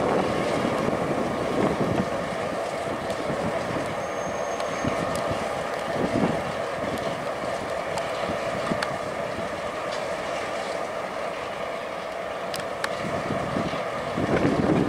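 Diesel freight locomotives running as they haul a train slowly past, a steady engine and rail rumble with scattered wheel clicks.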